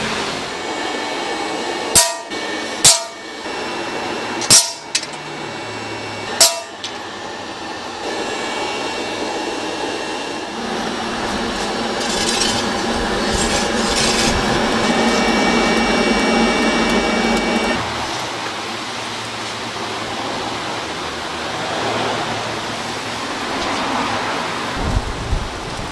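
Four sharp metallic strikes that ring briefly, then a steady mechanical workshop noise that cuts off about eighteen seconds in.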